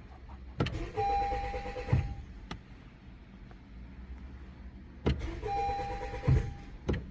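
A Honda CR-V's failed start attempts, done twice: each is a click, then about a second of steady whine, then a low thump, and the engine does not start.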